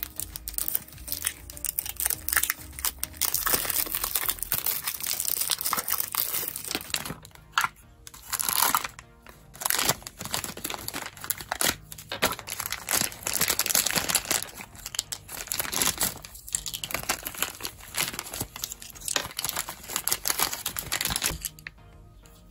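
Plastic wrapping of a toy blind box being torn open and crumpled in the hands: dense crinkling in bursts with short pauses, stopping shortly before the end.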